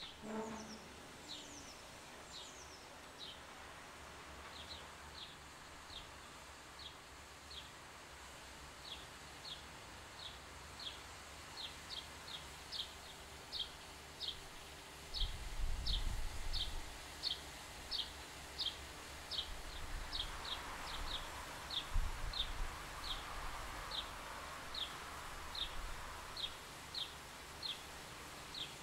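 A small bird calling over and over: short, high, downward chirps at about two a second, steady outdoor background beneath. A soft hiss and low rumbling come in around halfway through.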